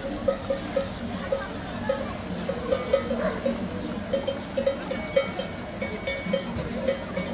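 Livestock bell clanking in a steady rhythm with the walking gait of the animal wearing it, about three strokes a second.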